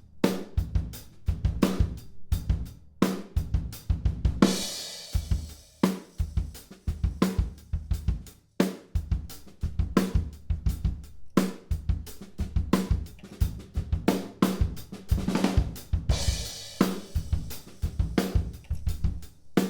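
Recorded acoustic drum kit playing a groove, with kick, snare and hi-hat on a regular beat. It is heard through the close mics and overheads blended with a U47 mono room mic and a Blumlein room pair. A cymbal crash rings out about four seconds in and again about sixteen seconds in.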